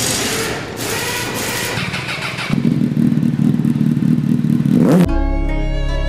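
Motorcycle engine firing up and running, then settling into a deeper, heavier rumble about two and a half seconds in. It cuts off abruptly about five seconds in, when bowed-string music begins.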